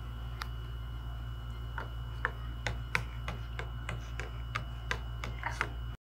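A metal spoon stirring water in a cup, clinking against the cup's side: one clink, then a steady run of about three clinks a second from about two seconds in, over a steady low hum.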